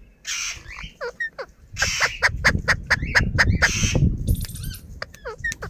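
Pet parrot calling: a quick run of harsh squawks, sharp clicks and short gliding whistled chirps, busiest in the middle.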